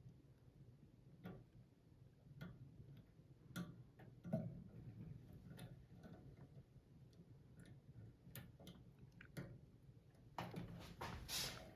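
Faint, scattered clicks and small handling noises of metal parts as crimped spade connectors are worked onto the terminals of a microwave's replacement thermostat, with a louder scraping rustle about ten seconds in.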